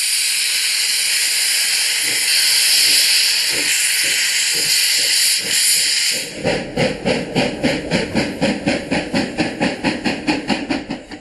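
GWR steam railmotor No. 93 moving off: a loud, steady hiss of steam from its cylinder drain cocks for about six seconds, then rapid, even exhaust beats, about five a second, as it pulls away, fading near the end.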